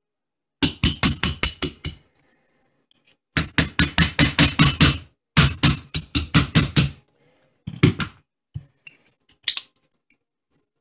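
Mallet tapping a steel pin punch to drive the hammer pin out of an AR-15 lower receiver: three quick runs of sharp metallic strikes at about six a second, then a single tap.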